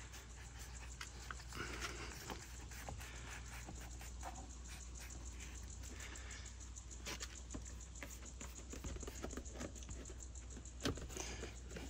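Rubber door weatherstrip seal being pressed by hand back onto the door-opening pinch weld: faint scattered clicks and soft rustling, with a sharper knock near the end.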